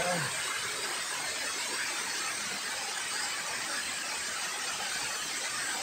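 Water cascading down a sloping concrete spillway, a steady rushing hiss.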